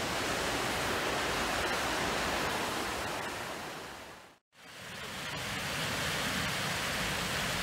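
Steady rushing of river water spilling over a weir. It fades out about four seconds in and fades back in a moment later.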